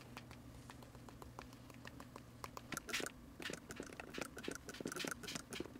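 Faint taps of a paint-loaded brush being knocked to splatter watercolour paint onto paper. From about three seconds in, a quicker, louder run of sharp scratchy flicks follows as more paint is spattered.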